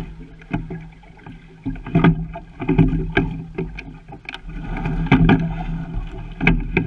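Sculling boat being rowed: sharp clicks and knocks from the oars working in their oarlocks and the sliding seat, over water rushing along the hull. The sound swells with each stroke, twice.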